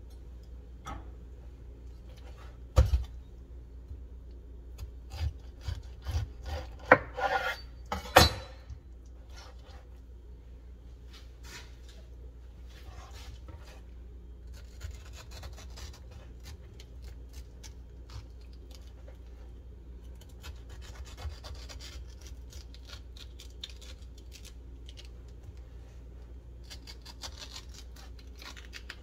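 A knife cutting a fresh pineapple on a bamboo cutting board. There are several sharp knocks of the blade and fruit on the board in the first eight seconds or so, then quieter rasping strokes as a small knife slices through the flesh.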